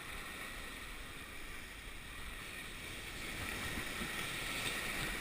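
Steady wash of water and wind noise around a surf boat on the water, growing a little louder near the end.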